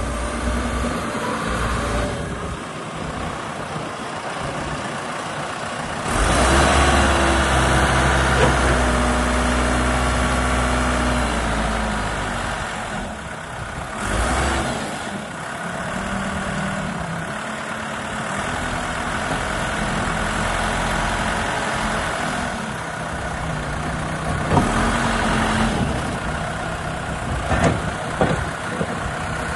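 Four-cylinder diesel engine of a 1997 Case 580 Super L backhoe loader running, rising in speed and load about six seconds in for several seconds before settling back to a steadier run. A few sharp clanks come near the end.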